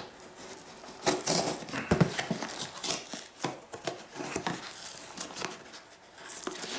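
Rustling, crinkling and irregular clicks and scrapes of a mailing package being handled and opened.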